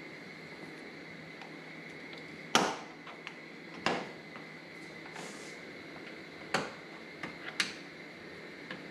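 Sharp plastic clicks and snaps as push-pin rivets are worked out of the plastic cover at the front of a Subaru Crosstrek's engine bay with a hand tool. There are four distinct clicks, the loudest about two and a half seconds in, over a faint steady high hum.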